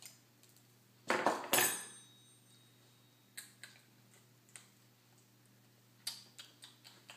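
A small glass spice jar knocking down onto a kitchen counter: two sharp clinks about a second in, the second with a brief ring. A few light clicks and taps of jars being handled follow, with more near the end.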